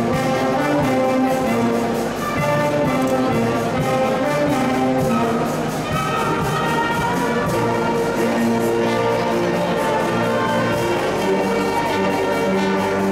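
A wind band of brass and woodwinds, with flute, clarinets and tuba, playing a tune together.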